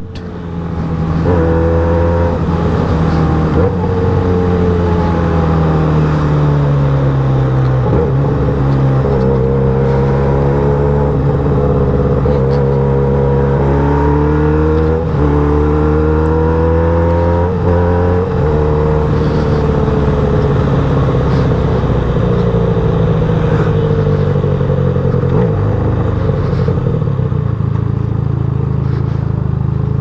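Benelli 302S motorcycle's 300 cc parallel-twin engine under way, its note rising and falling repeatedly as the rider accelerates and eases off, with brief breaks at gear changes.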